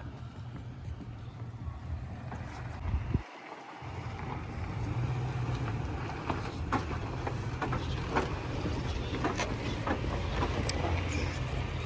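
Off-road truck's engine running low with wind buffeting the microphone, the rumble cutting out briefly just after three seconds and coming back stronger. Scattered sharp clicks and crunches in the second half, like tyres working over rock and gravel.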